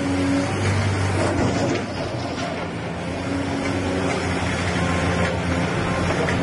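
Diesel engine of a Doosan crawler excavator running steadily with a low hum while the machine swings its boom and lifts its bucket.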